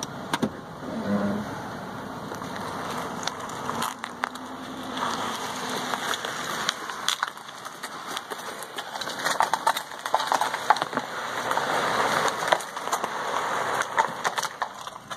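A heavily loaded plastic trash can being shoved and dragged across rough asphalt: a gritty scraping full of small knocks and clicks, coming in uneven spurts.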